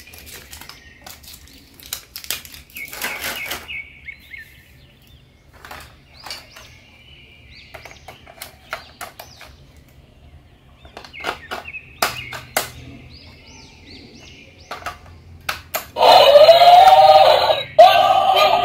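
AA batteries clicking and clattering against hard plastic as they are handled and pressed into a toy robot's battery compartment, with faint chirps in the background. Near the end, a loud drawn-out call with an arching pitch comes in two parts with a short break.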